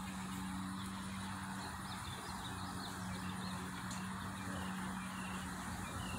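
Outdoor yard ambience with free-ranging chickens: many short, high chirps scattered over a steady low hum.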